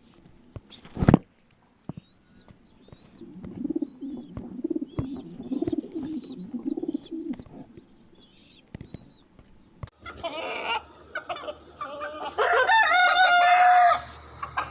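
Pigeons cooing in a low, evenly repeating series, with high short chirps from small birds above them. About ten seconds in, louder calls take over, ending in one long drawn-out call from a larger bird.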